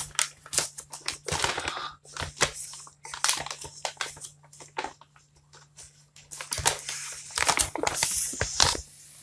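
Rustling and crinkling of a gift-wrapped package being handled, in irregular bursts with small sharp crackles, over a faint steady low hum.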